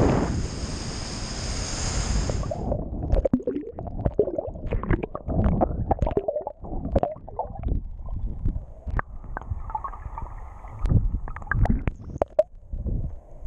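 Small waves washing in the shallows, then about two and a half seconds in the sound turns muffled as it goes under water: low sloshing and gurgling with many scattered clicks and pops.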